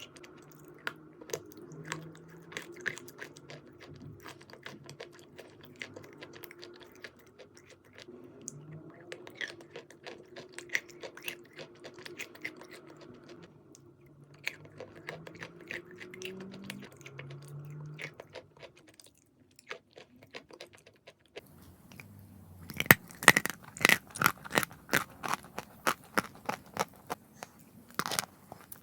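Close-miked chewing of eating chalk: many small crisp crunches, then, about three-quarters of the way through, much louder, denser crunching, with one sharp crack near the end.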